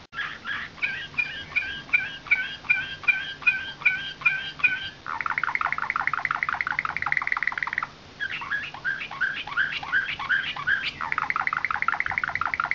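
Nightingale-song ('slavujar') canary singing: a series of separate falling chirps, about two or three a second, breaks about five seconds in into a fast rolling trill. After a short pause the slow chirps return, then give way to a fast trill again near the end.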